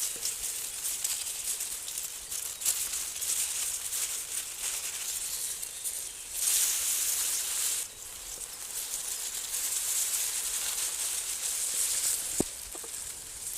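Close-up ASMR rustling and scratching of a dry material, a soft continuous hiss that swells louder for a second or two in the middle, with a small click near the end.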